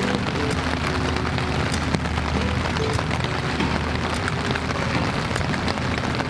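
Electric floor fan running, a steady rush of air over a low motor hum.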